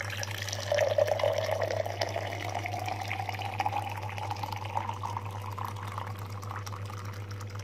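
Hot water just off the boil poured in a steady stream into a large glass mug, the sound of the filling rising in pitch as the mug fills.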